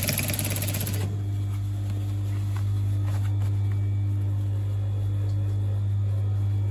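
Industrial flatbed sewing machine stitching through a thick corduroy hem, its rapid needle strokes stopping about a second in. A steady low hum carries on after the stitching stops.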